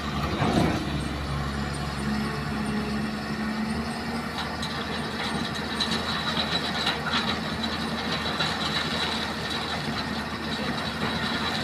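Heavy diesel earthmoving equipment at work: an engine running steadily, with scattered metallic clanks and a thin high whine from about four seconds in.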